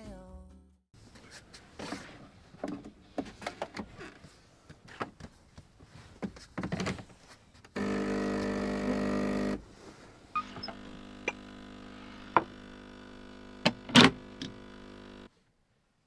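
Clicks, knocks and rustling of people moving about and handling things in a camper van. About 8 seconds in, a small electric motor or pump hums steadily for about two seconds, then a quieter steady hum runs on under more clicks and a few sharp knocks, and cuts off suddenly near the end.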